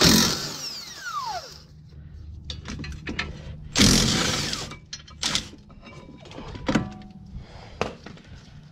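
Cordless impact wrench spinning out the two 17 mm caliper bracket mounting bolts: a loud burst at the start whose whine falls away over about a second and a half as the motor spins down, and a second burst about four seconds in. After that come a few light metallic clicks and knocks.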